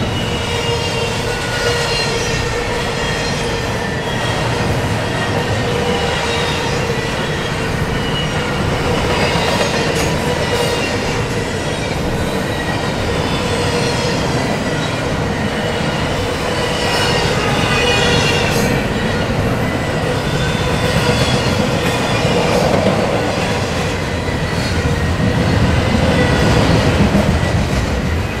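Double-stack intermodal container cars rolling past: a steady rumble of steel wheels on rail, with a high, wavering wheel squeal over it.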